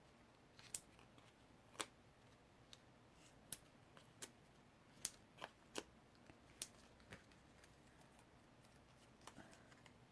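Faint, scattered small clicks and ticks, about a dozen at irregular spacing, from paper card pieces being handled and pressed together with foam adhesive dimensionals on a craft table.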